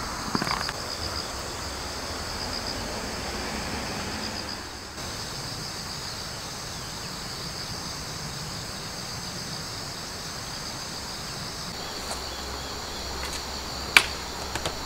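Steady chorus of crickets and other insects, a high trill that pulses evenly at first. About fourteen seconds in, a single sharp click comes from a folding camp chair being handled.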